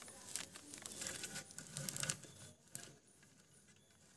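Leaves and thin stalks crackling and rustling as hands press a layer of bhamburdi leaves down into a clay pot, with many small sharp crackles that thin out after about two and a half seconds.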